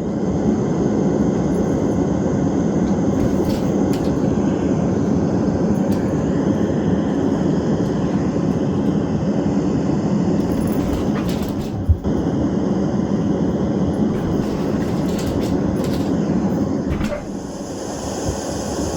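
A DREAMIE sleep-aid speaker playing a steady, deep noise soundscape, a continuous low hiss with no rhythm, of the kind used for sleep masking. A single short knock comes about twelve seconds in.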